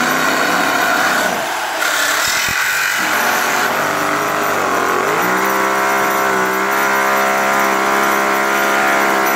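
Toyan FS-V800 miniature nitro V8 engine being spun by its starter and catching; about five seconds in its note dips and then settles into a steady, even run.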